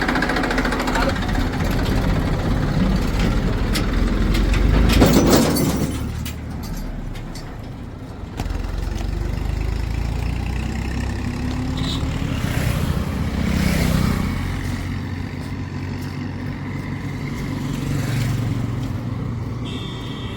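Heavy diesel machinery running, its engine note swelling and easing as it works: loudest about five seconds in, dropping away soon after, and picking up again a few seconds later with more swells near the end.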